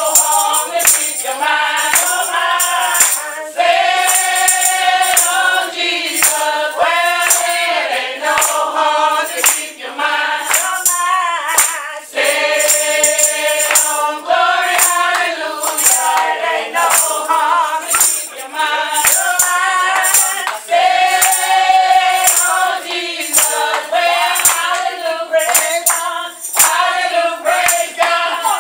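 Church congregation singing together, many voices in phrases of a few seconds, over a steady percussive beat of about two strokes a second.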